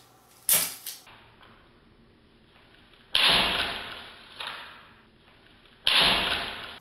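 A cat batting a nail file across a floor mat: a sharp tap about half a second in, then two loud swishes that start suddenly and fade over about a second, with a smaller one between them.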